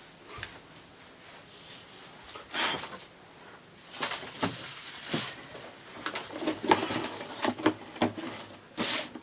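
The drill's box and packaging being handled: irregular rustles, scrapes and sharp clicks, sparse at first and busier from about four seconds in.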